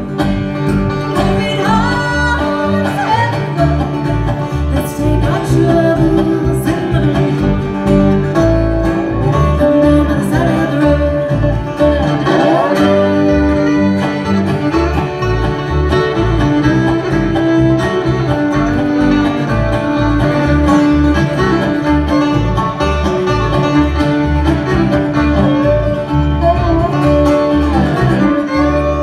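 Bluegrass band playing, with fiddle and guitar over a steady, moving bass line.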